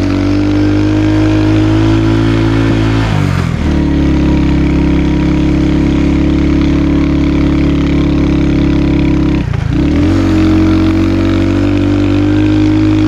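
Motorcycle engine running steadily while riding, its note dipping briefly twice, about three and a half and nine and a half seconds in, then picking back up.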